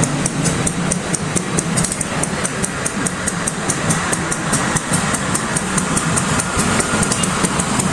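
CC 201 diesel-electric locomotive's engine running steadily, with a rapid, even ticking about five times a second on top.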